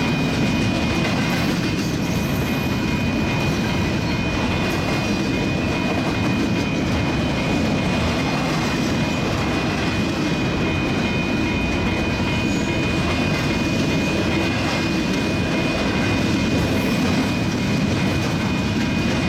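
Freight train of double-stack container cars rolling past, a steady rumble and rail noise with light clickety-clack from the wheels over the rail joints. A thin, steady high-pitched tone runs through it.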